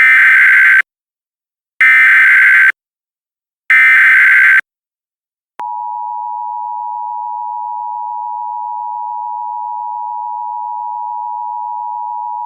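Emergency Alert System tones: three bursts of the SAME digital header, each a harsh warbling screech about a second long with a second's gap between them. About five and a half seconds in, the steady two-tone EAS attention signal starts and holds.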